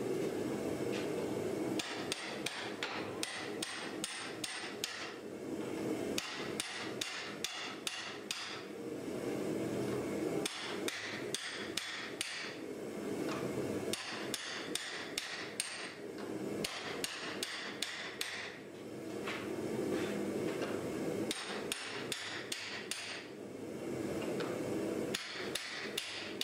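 Hand hammer striking a handled top tool held on a red-hot steel axe blank clamped in a vise: runs of sharp steel-on-steel blows, about three a second, with short pauses between the runs. A steady low hum runs underneath.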